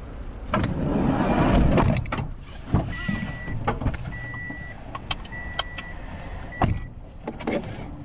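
A car door being shut, a rumbling rush for about a second and a half, followed by four short, evenly spaced electronic beeps from the car with a few sharp clicks among them.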